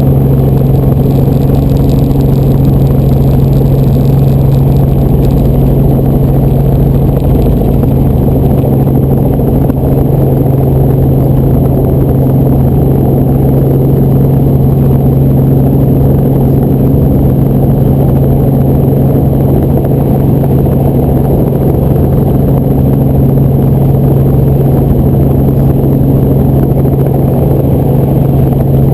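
Helicopter in flight: the engine and rotors make a loud, steady drone with a constant low hum and a thin high whine.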